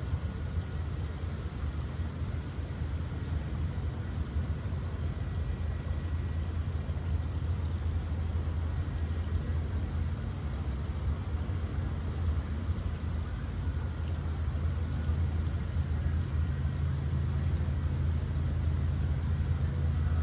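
Steady outdoor background rumble, low and even, with a faint hiss above it and no distinct events.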